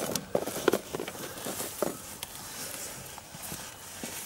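Scattered light clinks and rustling of a rusty chain being worked by hand around the suspension rods under an off-road vehicle. There are a few sharper clicks in the first two seconds, then it goes quieter.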